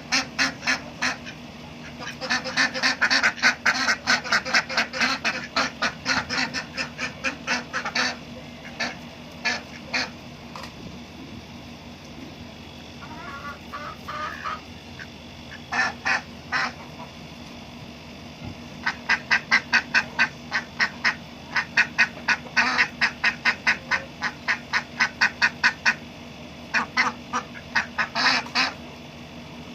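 Ducks quacking in rapid runs of calls, several bouts with short pauses between, over a steady low hum.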